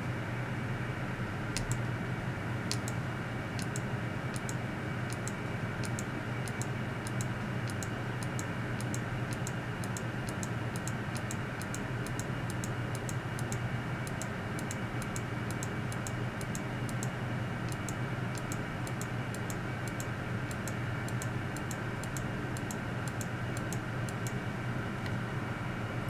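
A run of light, sharp clicks, about two to three a second, begins about a second and a half in and stops near the end. Under them is a steady low hum.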